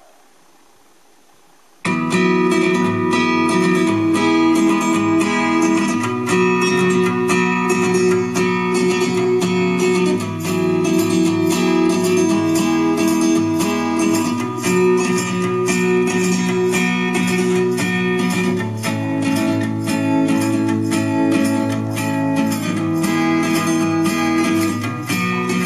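Guitar music played back from a cassette on an MCS 683-3595 dual stereo cassette deck, starting suddenly about two seconds in with steady strummed chords.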